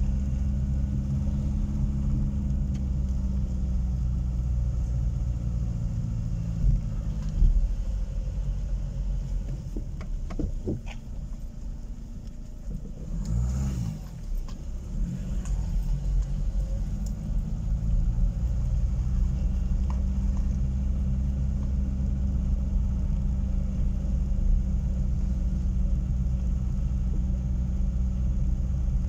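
Car engine and road rumble heard from inside the cabin while driving slowly. The engine note drops and fades as the car slows about a third of the way in, then picks up again as it speeds up. There are a couple of knocks in the first half.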